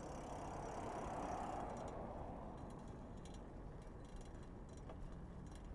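Riding noise from a bicycle on a road, a steady rush that is a little louder for the first two seconds, then the faint ticking of the rear hub's freewheel ratchet as the bike coasts.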